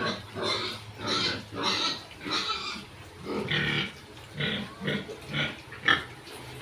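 Pigs calling in a run of short, harsh bursts, about one or two a second, over a faint steady hum.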